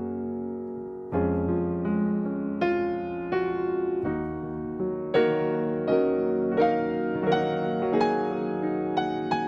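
Background music played on a piano-like keyboard: a held chord dies away for about a second, then a slow melody of struck notes over chords picks up, a new note about every three quarters of a second.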